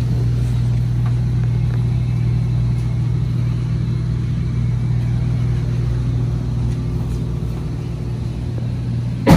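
2012 Ford Fusion's engine idling with a steady low hum. A single sharp knock comes right at the end.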